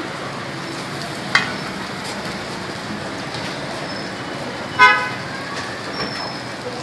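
A short vehicle horn toot about five seconds in, the loudest sound, over steady street and cooking background noise. A fainter brief high tone comes about a second and a half in.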